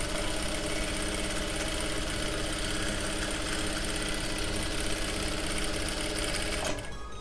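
Jack F4 industrial lockstitch sewing machine running steadily as it stitches denim at a short stitch-length setting (2), then stopping near the end.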